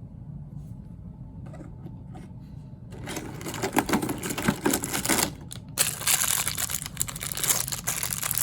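Toy packaging being handled and opened, crinkling, crackling and tearing in a fast, dense run of small clicks that starts about three seconds in, after a quiet start.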